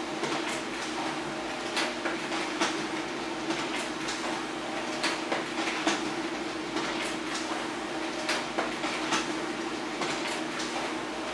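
HP LaserJet Pro M402d laser printer running a double-sided print job: a steady motor hum with irregular clicks and clacks from the paper handling.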